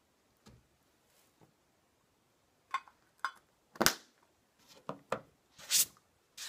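Small clicks, taps and scrapes from a snuff can being handled, with its lid knocked and worked in the hands. The sounds are short and scattered, starting about two and a half seconds in, with the sharpest knock near four seconds and a couple of longer scrapes near the end.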